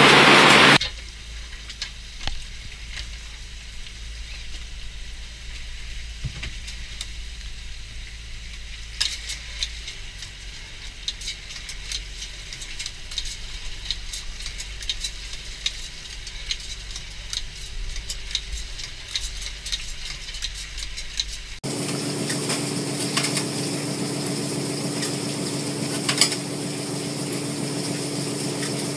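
A fishing longline runs out through an automatic baiting machine on a boat deck: low wind rumble under a fast, dense stream of crackling clicks. About three-quarters of the way in, a hard cut brings a steady machine hum with a held low tone as a line hauler draws the longline and fish aboard.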